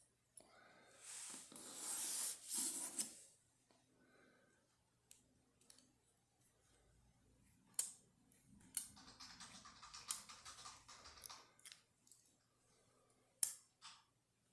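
Faint scraping and sharp metallic clicks from small metal parts as a pin-tumbler oval lock cylinder is shimmed and taken apart. There is a run of rapid small ticks partway through.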